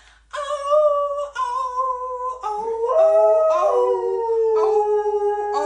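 A dog howling along to a sung tune in long, slowly gliding notes, with a woman's voice joining in on a held "ooh" from about halfway.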